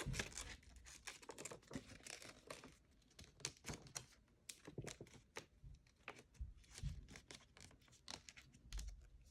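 Faint rustling and crinkling of printer paper being handled and pushed into folds by hand, in many small irregular crackles.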